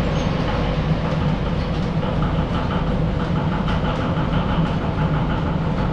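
Belt-driven machinery of a historic woodworking mill running idle: overhead line shafts, pulleys and flat belts turning with a steady low hum and a light repeating clatter.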